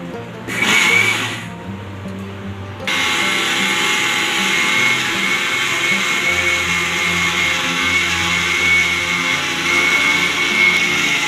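Kinbo mixer grinder motor spinning its blades through salt in a small steel jar at high speed, grinding the salt to sharpen and clean the blades. A short burst comes about a second in, then the motor runs steadily with a high whine from about three seconds in.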